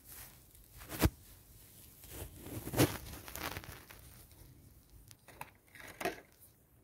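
Faint handling noises: a light knock about a second in, then rustling and crinkling, and a few small clicks near the end.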